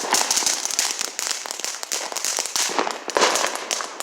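Consumer fireworks going off close by: a dense, rapid crackle of small pops over a steady hiss, swelling louder about three seconds in.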